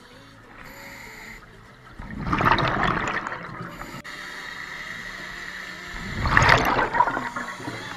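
A scuba diver's regulator exhaling underwater: two loud gurgling rushes of bubbles, about four seconds apart.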